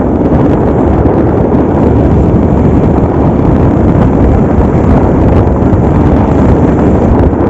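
Wind buffeting the microphone over the steady rumble of a vehicle travelling along a rough road.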